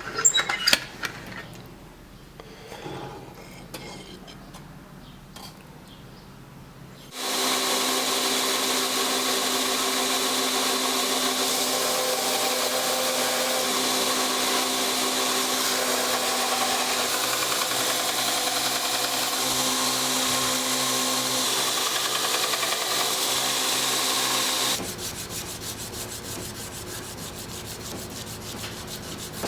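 A few sharp clinks, then a shop power tool running steadily for about eighteen seconds while working the knife. It stops abruptly and gives way to a quieter rubbing, sanding sound.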